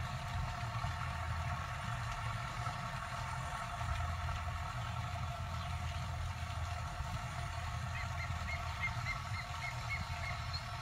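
Tractor engine running steadily. Near the end, a quick run of about eight short high chirps.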